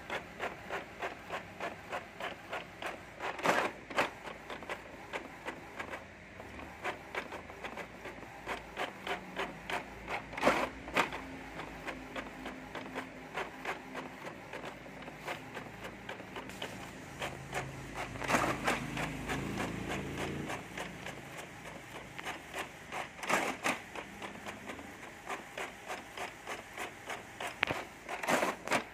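Inkjet printer printing: the print-head carriage shuttles back and forth in a quick, regular rhythm of about two passes a second. Louder clacks come every five to seven seconds, and a lower motor whir runs for a few seconds in the middle.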